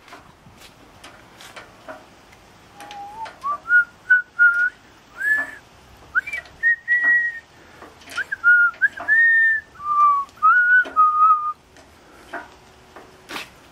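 A person whistling a tune: a string of held notes with short slides between them, starting about three seconds in and stopping near the end, over scattered clicks and knocks.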